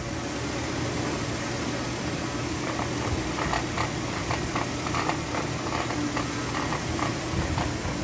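Hyundai Santa Fe 4WD drivetrain running in gear on a lift with the wheels turning: a steady hum with a run of short, uneven clicks from about three seconds in. This is the under-chassis grinding noise, which the mechanic traces to the transfer case.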